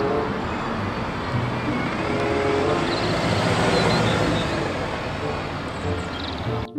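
A red single-decker city bus driving past and pulling away along a street, its engine and tyre noise steady. The sound cuts off suddenly near the end.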